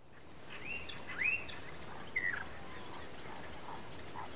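Outdoor ambience fading in, a steady background hiss with a few bird calls: two arching whistled chirps about a second in, a short call a little after two seconds, then fainter calls.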